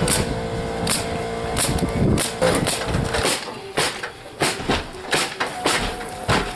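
Pneumatic roofing nailer firing nails through asphalt shingles: about a dozen sharp shots at irregular intervals.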